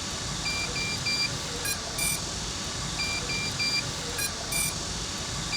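Short, high electronic beeps, all on one pitch, in a repeating pattern: three quick beeps, then a pair, and the pattern comes around again after about two and a half seconds.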